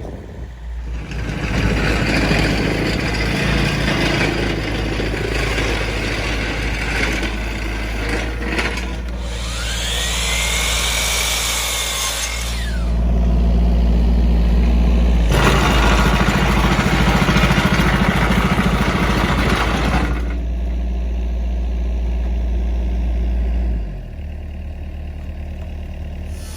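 An engine running steadily, with a rushing noise over it that comes and goes, loudest in the middle stretch and dropping away about four seconds before the end.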